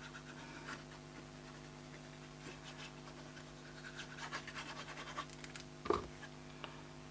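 Faint scratching of a liquid-glue applicator tip being drawn in wavy lines across white cardstock, then a soft thump just before six seconds in as the glued insert is laid onto the card and pressed down by hand.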